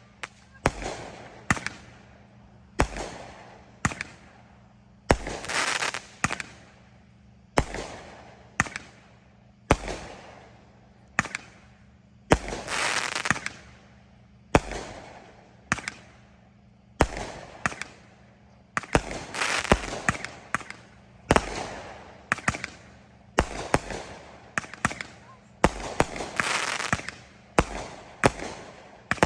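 Consumer aerial fireworks going off one after another: sharp bangs about every second or two, many of them followed by a crackling tail lasting a second or so.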